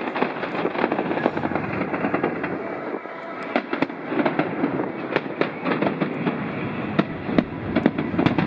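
Fireworks display going off: a dense run of crackling and sharp bangs in quick succession, with some of the strongest bangs near the end.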